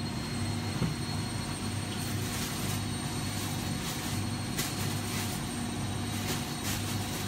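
Steady low mechanical hum with an even hiss, and a few faint, soft, brief noises over it.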